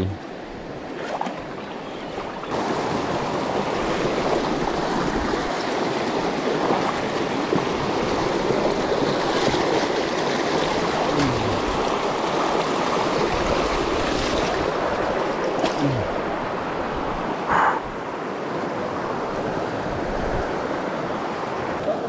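Shallow river water rushing over rocks in a riffle, a steady wash that gets louder about two and a half seconds in.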